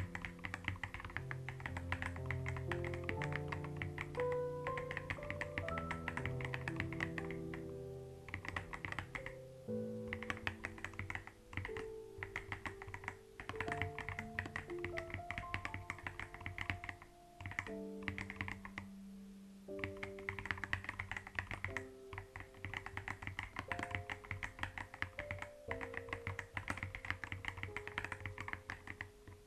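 Computer keyboard typing in quick runs of key clicks with short pauses, over soft background music with held melodic notes.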